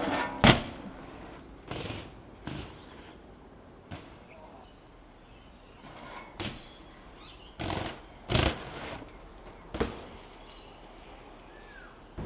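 A BMX bike knocking and clattering on hard ground: about eight sharp, irregular impacts over several seconds, the loudest about half a second in and another near eight and a half seconds in.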